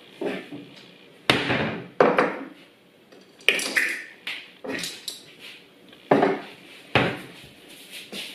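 A run of about seven sharp knocks and clunks: wooden sideboard drawers being shut and things being set down on a wooden countertop, one of them with a brief metallic clink.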